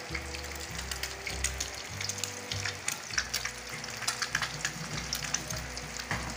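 Food frying in hot oil: many irregular sharp crackles and pops over a hiss, with background music underneath.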